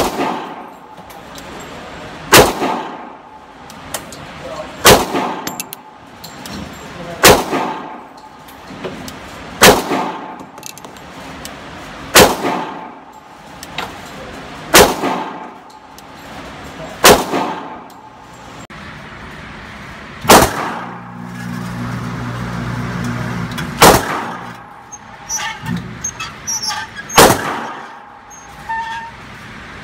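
Pistol shots fired singly at a slow, even pace, about one every two and a half seconds, roughly a dozen in all.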